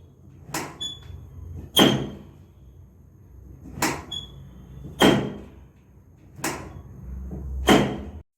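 Six sharp thumps of a chiropractic adjustment on the lower back, a second or two apart, over a faint low hum.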